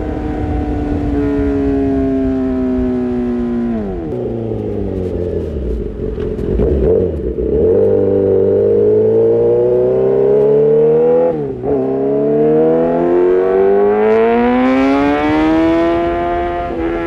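Kawasaki ZX-6R inline-four engine through an Arrow Pro-Race exhaust, under way. The revs drop about four seconds in and stay low for a few seconds, then climb steadily, dip sharply for a moment near the middle like a quick gear change, and climb again toward the end.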